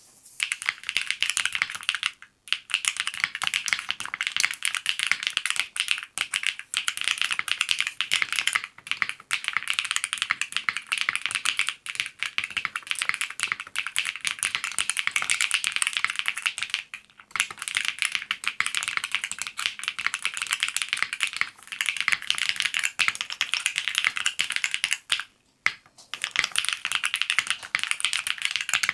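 Fast typing on the Vella PE Hall Effect custom keyboard, with Geon Raw HE magnetic switches and GMK keycaps: a dense stream of key clacks broken by a few short pauses.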